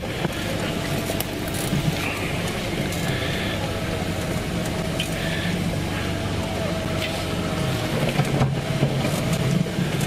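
Safari game-drive vehicle's engine running steadily at low revs as the vehicle moves slowly through the bush.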